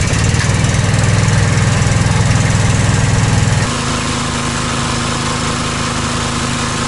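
A petrol-engine high-pressure scuba-tank air compressor running steadily at about half throttle, just after catching on the pull-start. About three and a half seconds in, the sound drops a little and settles into a steadier, more even hum.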